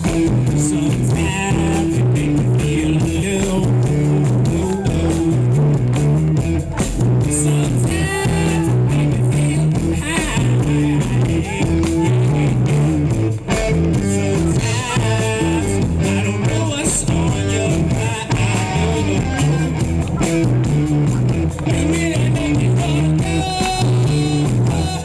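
A rock band playing live through stage amplification: electric guitar, bass guitar and drum kit, with a lead vocal sung into a handheld microphone over them.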